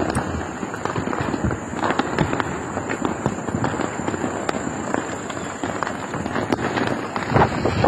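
Firecrackers and fireworks going off in many irregular pops and cracks, densely through the whole stretch, as for the Karthigai Deepam festival.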